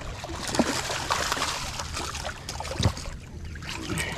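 Water splashing and sloshing right beside a small fishing skiff as a hooked snook thrashes at the surface, with two dull thumps.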